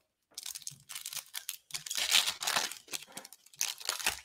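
Foil wrapper of a basketball trading card pack being torn open and crinkled by hand: an irregular run of crackling rustles, loudest about two seconds in.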